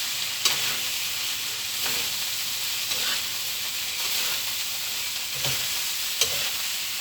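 Fried rice sizzling in a hot pan while it is stirred and tossed, a steady hiss broken by a few sharp clicks of the spatula against the pan.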